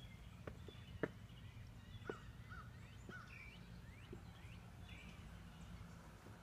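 Faint bird chirps, short scattered calls over a low steady background hum outdoors, with a couple of soft clicks about one and two seconds in.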